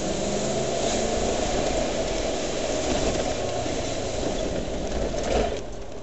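Land Rover Discovery V8 engine pulling the vehicle along a rough, muddy track, heard from inside the cab as a steady, dense running noise. It drops to a lower level about five and a half seconds in.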